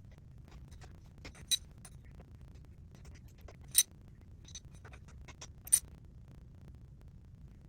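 Sharp metallic clinks and small taps of tools on a unicycle's wheel hub while the bearing tension is being adjusted: three louder clinks about two seconds apart, with lighter ticks between.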